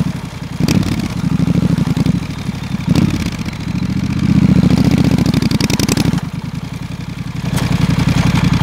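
Triumph Street Scrambler's 900 cc parallel-twin engine running on the road, its pulsing note swelling and dropping back several times as the throttle is worked at low speed, with three short sharp cracks along the way.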